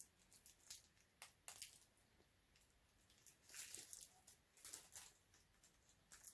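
Faint, soft chewing and small sticky mouth clicks from eating a bite of a blue raspberry fruit roll-up, coming in short scattered patches.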